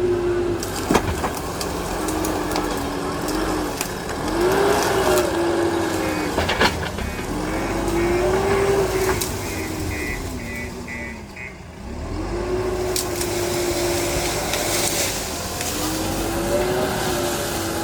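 JCB 3DX Super backhoe loader's diesel engine working under hydraulic load, its pitch rising and falling in repeated arches every few seconds as it digs, with a couple of sharp knocks.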